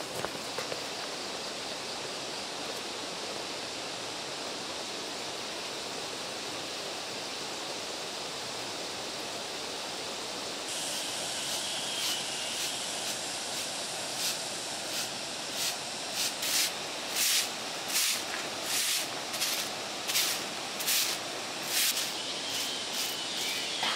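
Steady outdoor hiss; about halfway through, rhythmic swishing strokes begin, about two a second.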